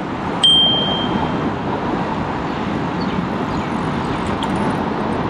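Steady road and traffic noise from city cycling, heard from a GoPro on a moving bicycle. About half a second in there is a single high ding that fades over about a second.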